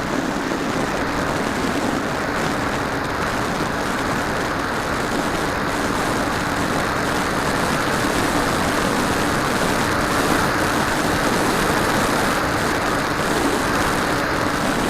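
Radio-controlled model aircraft in flight, heard from its onboard FPV camera: a steady rush of wind noise over a faint, even hum from the propeller motor.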